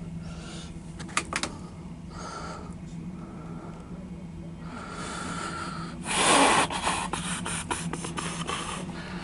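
Loaded coal hopper cars of a CSX freight train rolling past with a steady low rumble and runs of clicks from the wheels. A loud rushing burst comes about six seconds in.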